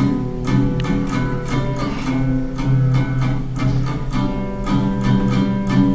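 Live instrumental music between sung lines: a plucked string instrument strummed in a steady, even rhythm.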